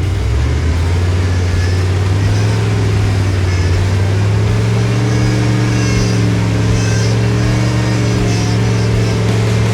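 Vehicle engine running steadily, its pitch shifting slightly about halfway through.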